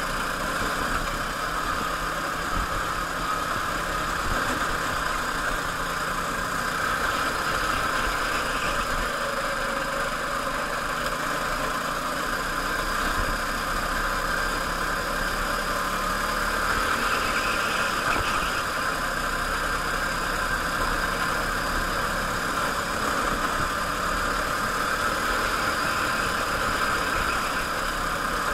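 Go-kart engine running hard through a lap, heard from on board the kart, its pitch drifting up and down a little with the corners.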